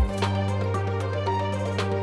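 Background music: held bass and instrument notes with a steady drum beat.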